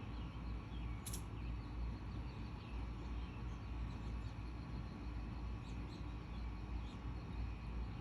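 Outdoor ambience: faint bird chirps over a steady low rumble, with one brief high chirp about a second in.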